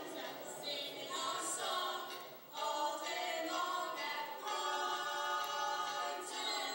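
Several voices singing together a cappella, ending in long held notes.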